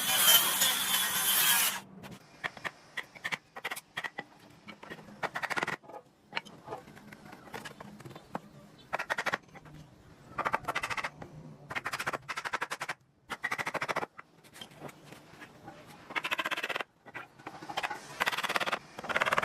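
A saw or power tool cuts wood and stops abruptly about two seconds in. It is followed by a run of short, irregular rasping strokes of hand woodworking on timber.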